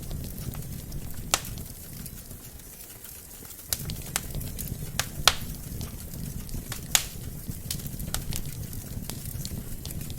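Wood fire burning in a fireplace: a steady low rumble of flames with scattered sharp crackles and pops from the logs. The loudest pops come about a second in, near the middle and at about seven seconds.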